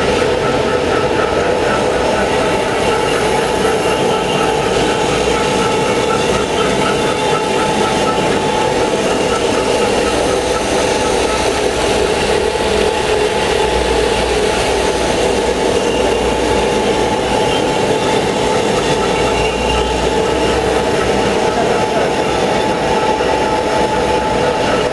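Four-head spiral scourer making machine running, knitting stainless steel wire into scourer balls: a loud, steady mechanical clatter with a constant hum.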